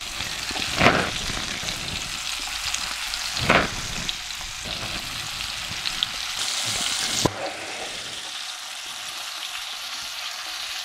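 Flour-coated pike pieces frying in hot vegetable oil in a pan: a steady sizzle, with two louder bumps about one and three and a half seconds in as pieces are pushed and laid into the pan by hand.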